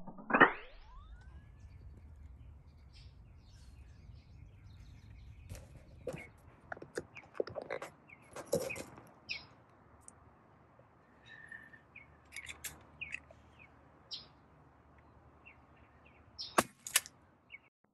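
Small birds chirping now and then over a faint low outdoor hum. A quick rising whoosh comes right at the start, and two sharp snaps close together come near the end.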